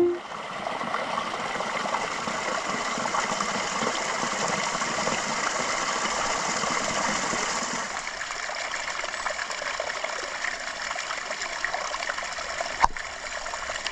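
Small woodland stream splashing over rocks in a little cascade, a steady rushing, a little softer in the second half. A single sharp click near the end.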